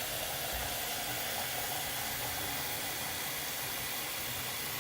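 Hot water running steadily from a tap into a pitcher as it fills.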